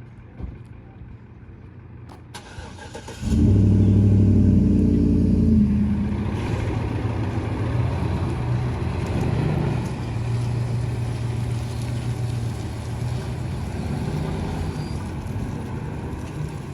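A car engine starts about three seconds in, runs loudest for roughly two seconds, then settles to a steady idle.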